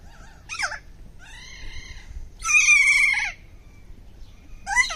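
A bird calling four times: a short falling call, a longer drawn-out call, a loud harsh call that falls at its end, and another short call near the end.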